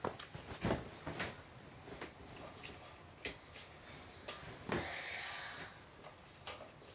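Faint scattered knocks and clicks, with a short sliding rustle about five seconds in, as window shades are being opened.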